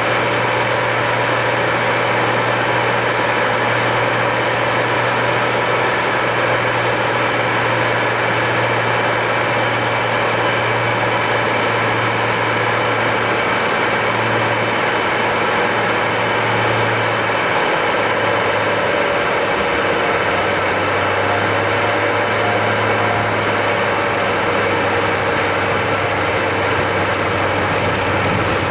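Cessna floatplane's piston engine and propeller, heard from inside the cockpit, running steadily at low power as it taxis on the water. The engine note settles slightly lower about eighteen seconds in.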